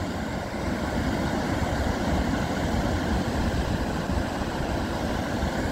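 Steady rushing of water pouring over the wide, stepped rock ledges of the Trappstegsforsen waterfall.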